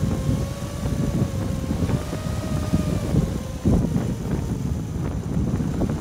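Strong wind buffeting an unshielded on-camera microphone in gusts of about 20 mph, a dense low rumble throughout. Over it a faint steady whine from a handheld vane anemometer's spinning fan wheel, fading out about halfway through as the gust drops.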